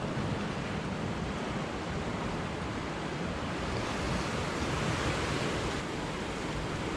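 Ocean surf washing against a rocky shoreline, a steady wash that swells a little about four seconds in, with wind buffeting the microphone.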